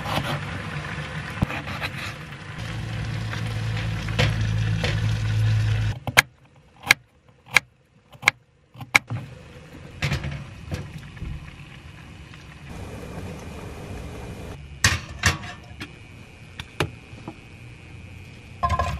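Cooking at a small gas stove: a steady low rumble for about six seconds that stops abruptly. Then come about five sharp knocks, roughly 0.7 s apart, like a knife striking a wooden cutting board, followed by scattered clinks of a metal pot and lid being set on the stove.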